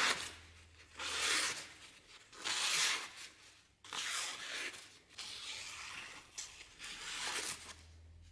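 A sharp knife blade slicing through a sheet of thick paper, a run of rasping cuts with short pauses between them. The strongest strokes come near the start and about one and three seconds in, with lighter cuts after.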